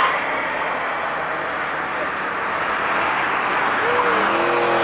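Corvette V8 race engines running at speed on a circuit, with steady engine and tyre noise. Near the end, engine notes bend up and down as more cars come closer.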